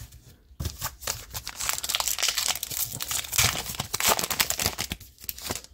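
A trading-card pack's wrapper being torn open and crinkled by hand: a dense crackling rustle that starts about half a second in and dies away near the end.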